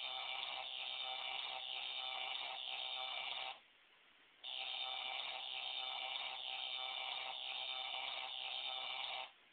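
Shocking Duel electric-shock toy sounding a steady electronic buzz in two long bursts, the first lasting about three and a half seconds and the second about five, with a one-second pause between. The buzz comes on and cuts off suddenly.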